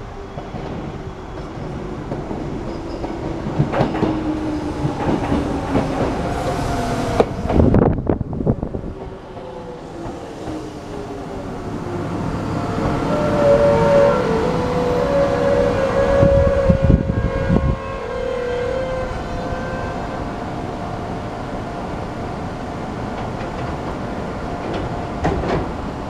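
Shizuoka Railway electric commuter train running past close by over the pointwork, its wheels clacking over rail joints and points. A held whine sounds as it goes by.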